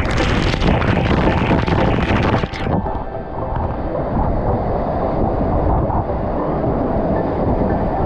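Hot spring waterfall pouring directly onto the camera: a loud, crackling rush of falling water and spray. About three seconds in it cuts off suddenly and gives way to a duller, steady rush of water spilling over a stone step into a pool.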